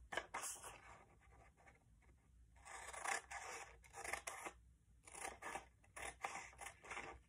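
Scissors cutting through a sheet of paper in a series of short, quiet snips, with a pause of about a second and a half after the first cuts.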